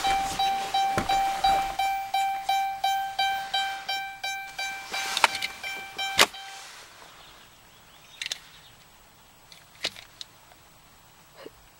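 A 2012 Dodge Grand Caravan's dashboard warning chime dinging rapidly, about two and a half dings a second, while the key is worked in the ignition. It stops with a sharp click about six seconds in, and a few soft clicks follow.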